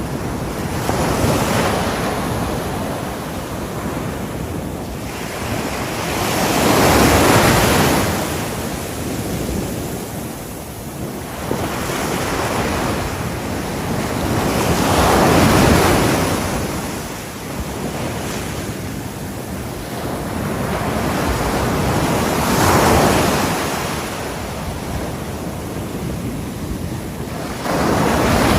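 Ocean waves breaking on a shore: a continuous wash of surf that swells into a louder break about every seven to eight seconds, with three big breakers in a row and a fourth rising near the end.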